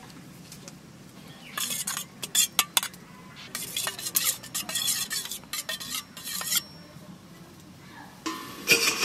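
Raw eggs being beaten with a metal utensil in a stainless steel bowl: rapid scraping and clinking strokes against the bowl for several seconds after a quiet start. A louder, steadier rushing noise begins near the end.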